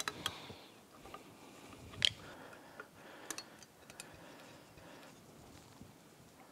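Scattered light metal clicks and taps from hand tools and bolts on the exhaust plate of a Yamaha F225 outboard's cylinder head, as the plate's bolts come out and a screwdriver works at the plate's edge. The sharpest click comes about two seconds in.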